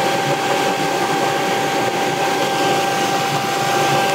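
AO Smith Legend 2000 commercial gas boiler firing: the steady rush of its combustion blower and burner, with a constant whine over it.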